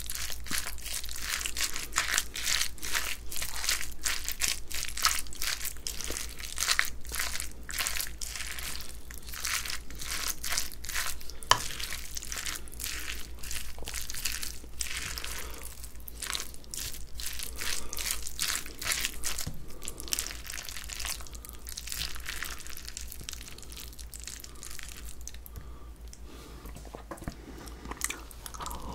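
Sea squirt bibimbap of rice and raw vegetables being stirred and mixed with a spoon in a glass bowl: a steady run of quick wet clicks and scrapes, thinning out near the end.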